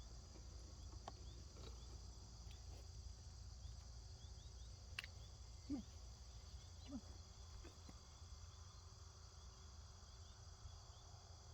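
Faint, steady chirring of crickets in the background, with a few faint ticks.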